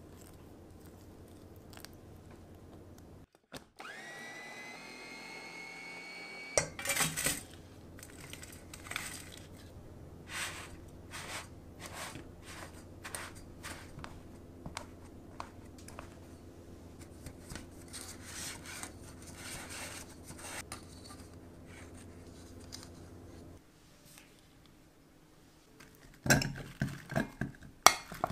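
A small food processor's motor spins up with a rising whine that levels off, mixing biscuit crumbs with melted butter. Then a drinking glass is pressed repeatedly onto the buttered crumbs in a cake pan, short crunching presses about once a second over a low steady hum. Near the end, strawberries drop into the processor's glass bowl with a quick run of loud knocks.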